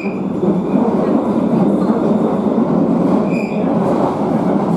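Bakerloo line 1972-stock tube train running through a tunnel, heard from inside the carriage: a loud, steady rumble of wheels on track. A high wheel squeal is dying away at the start and returns briefly about three seconds in.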